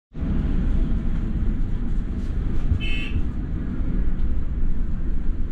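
A London double-decker bus running, heard from inside with its steady low rumble, and one short electronic beep about three seconds in.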